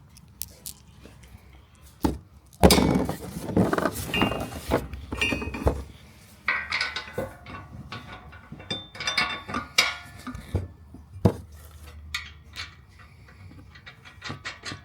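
Metal mounting hardware and brackets clinking and clanking as they are handled and fitted, with a loud clank about two and a half seconds in and another flurry of clinks a few seconds later.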